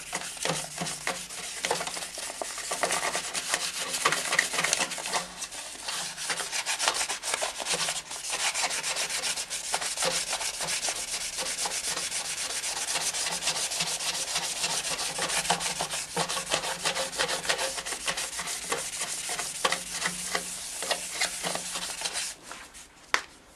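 Rapid, continuous sanding strokes of 1000-grit sandpaper on a metal exhaust downpipe, working out the coarser 400-grit scratches as a step toward polishing. The sanding stops about a second before the end, followed by a single tap.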